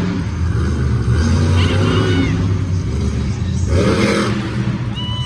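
Monster truck's supercharged V8 engine running with a steady low rumble, with crowd voices and a few shouts over it.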